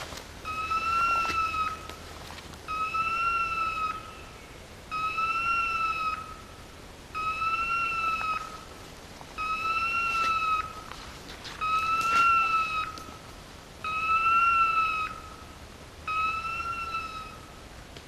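A dog's beeper collar in point mode sounding a repeated electronic beep, one long tone with a slight rise and fall about every two seconds, eight in all. The beeping is the collar's signal that the pointer has stopped and is holding a point.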